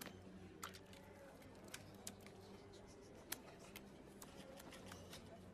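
Near-quiet room tone with a steady low hum and scattered faint clicks and ticks, the sharpest about three seconds in.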